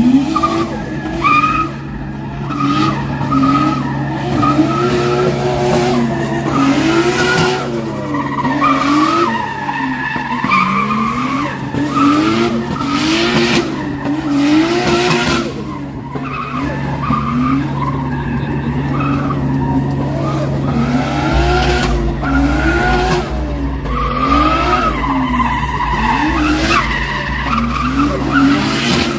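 Drift car doing donuts: its engine revs up and down about once a second while the tyres squeal and skid on the tarmac.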